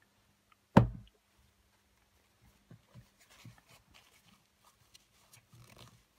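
A single sharp knock about a second in, then soft rustling of a paper tissue and light clicks of metal tweezers as the small negative battery contact of a Sony cassette player is wiped.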